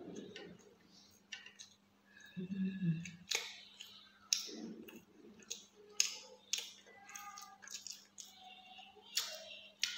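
Close-miked eating sounds: chewing with sharp, wet lip smacks about once a second. A few brief squeaky high-pitched mouth sounds and a faint steady hum sit underneath.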